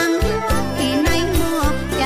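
Background music with a steady beat and a moving melody.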